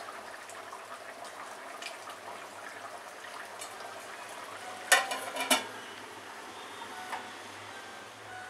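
Chicken curry simmering in an aluminium kadai. About five seconds in, an aluminium lid clanks down onto the pan with a few quick ringing metallic rattles, then a small knock.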